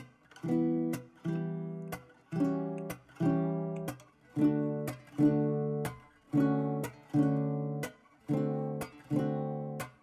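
Background music: strummed acoustic guitar playing chords in a slow, steady rhythm, about one strum a second, each chord stopping short before the next.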